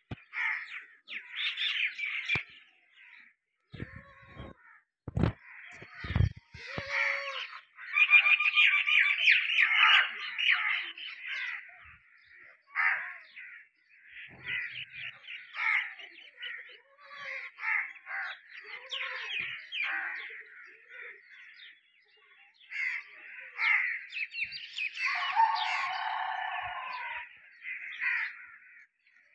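Many small birds chirping on and off, with a few low thumps about four to six seconds in.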